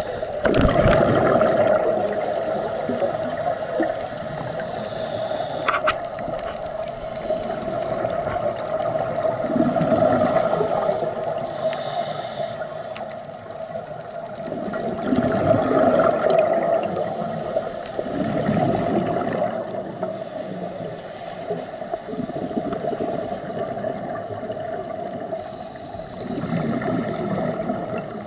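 Muffled underwater sound heard through a camera housing: a steady hum with swells of bubbling every several seconds, typical of scuba divers' exhaled regulator bubbles.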